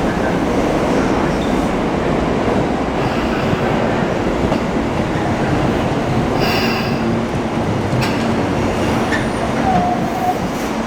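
Hibiya Line train moving through the platform: a loud, steady rolling noise with a brief high wheel squeal about six and a half seconds in, and a steady low hum setting in after it.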